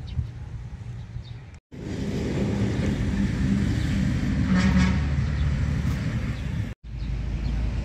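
A motor vehicle running, louder in the middle. The sound drops out completely for a moment twice, about two seconds in and near the end.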